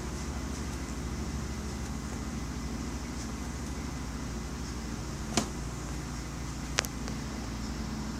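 Steady low motor rumble, with two sharp clicks about a second and a half apart a little past halfway.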